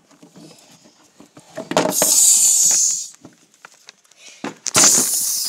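Camera handling noise: two loud hissing bursts of something rubbing over the microphone, the first about two seconds in and the second near the end, with scattered clicks and knocks between.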